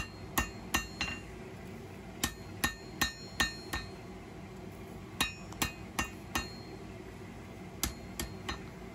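Hand hammer striking a hot steel knife blade on an anvil: groups of three to five ringing blows, about two to three a second, with short pauses between groups, as the blade's shape and bevel are evened up in the final forging.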